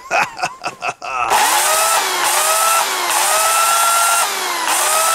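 Oregon CS1500 electric chainsaw fitted with a long bar, revved in about four spurts starting about a second in. Each time, the motor's whine sweeps up to speed over a loud, hissing chain.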